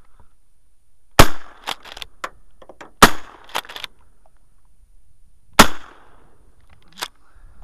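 Shotgun fired three times, about two to two and a half seconds apart, with fainter clicks between the shots.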